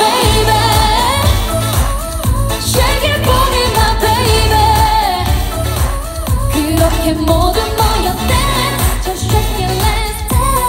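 A live K-pop song through a concert sound system: a woman singing into a microphone over an amplified pop backing track, with a heavy bass beat that kicks in right at the start.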